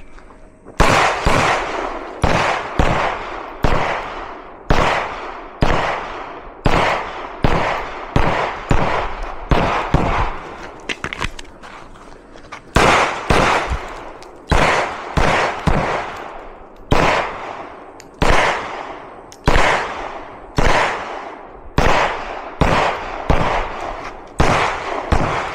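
Semi-automatic pistol fired one-handed in a long string at about two shots a second, each shot trailing off. Near the middle the firing stops for about two and a half seconds with a few faint clicks of a reload, then goes on at the same pace.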